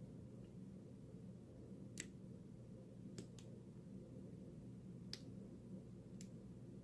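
Faint, scattered clicks of a lock pick and tension wrench working the pins of a CISA 60 mm brass padlock, about five light ticks over a low steady hum.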